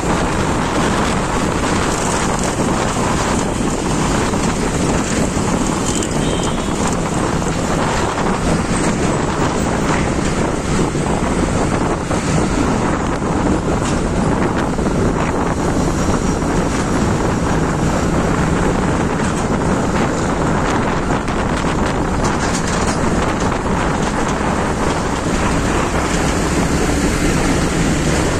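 Steady wind rushing over the microphone of a moving motorbike, with road and traffic noise under it.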